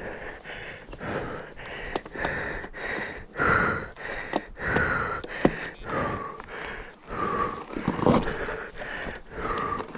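A rider panting hard from exertion, one heavy breath about every second, with a few sharp clicks and knocks in between.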